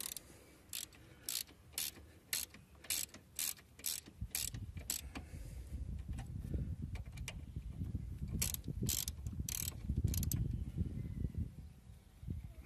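Ratchet wrench clicking in short bursts, about two a second, as a front brake caliper's guide bolts are undone; a few more bursts come later, over a low rumble.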